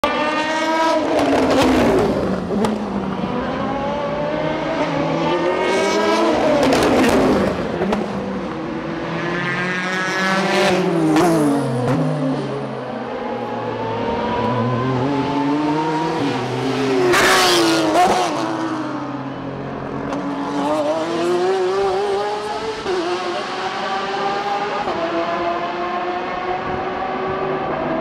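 Endurance race cars passing one after another close by, several loud passes with engine pitch falling and rising as they brake, downshift and pull away. Some engine sound hangs on steadily between passes.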